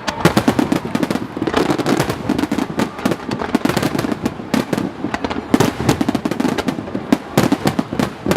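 Fireworks display in a dense barrage: many shells bursting in quick succession, a continuous run of sharp bangs and crackles with no pause.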